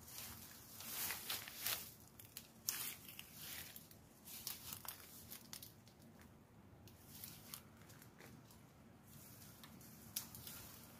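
Fern fronds and undergrowth rustling and crackling as someone pushes through them and picks wild fern shoots. There are a few sharp snaps among the rustling, the loudest a little under three seconds in.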